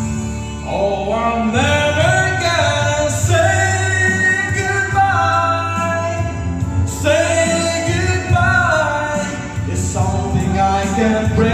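A man singing into a microphone over backing music, holding long notes that slide in pitch.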